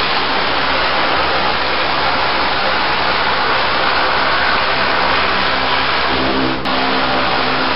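High-pressure water-blasting lance stripping barnacles off a steel barge hull: a loud, steady hiss of the water jet over the running hum of the pump's engine. A single click sounds near the end.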